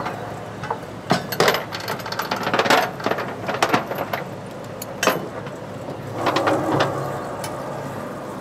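Irregular knocks and clanks of gear on a fishing boat's deck over the steady low hum of the boat's engine, with a brief rush of noise about six seconds in.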